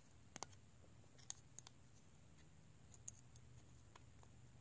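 Near silence with a low steady hum and a few faint light clicks, most in the first two seconds and one about three seconds in, from handling the opened aluminium housing of an iPhone 6.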